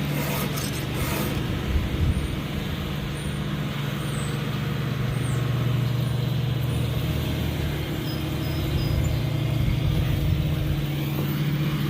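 A motor running steadily, a constant low hum with no change in speed.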